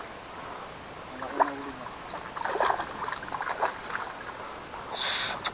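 A hooked fish splashing at the surface among floating water hyacinth as it is reeled in close to the bank, with a run of irregular splashes through the middle.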